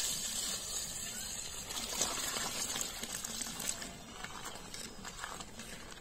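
Water pouring into an aluminium pot full of live freshwater crabs, loudest at first. Then hands splash and scrub the crabs in the water, with scattered small clicks of shell on shell and on the pot.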